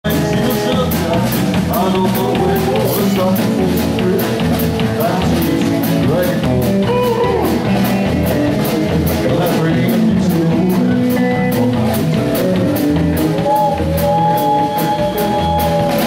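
Live rock band playing: guitars and a drum kit keeping a steady beat, with a singing voice over them.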